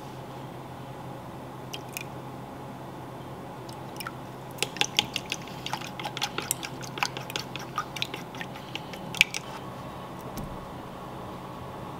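Wooden spoon beating raw eggs in a ceramic bowl: a quick, irregular run of clicks of wood against the bowl, starting about four seconds in and lasting about five seconds. A faint steady hum lies underneath.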